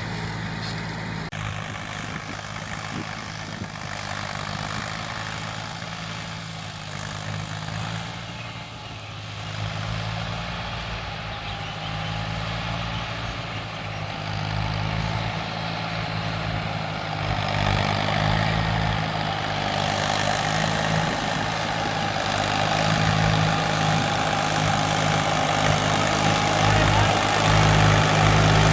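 Diesel tractor engine running steadily under load while pulling a plough, growing louder over the last third.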